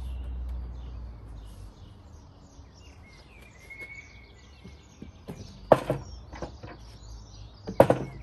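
A timber plank knocking twice against a metal work platform as it is set down, once near six seconds in and once near eight. Birds chirp faintly behind, over a low rumble.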